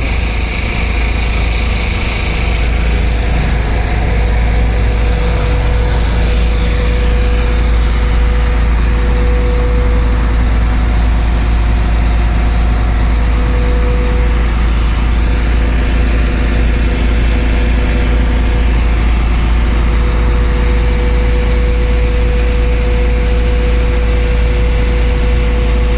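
Concrete pump truck running steadily while pumping concrete through its delivery line, a loud even engine-and-pump drone with a steady tone held through it.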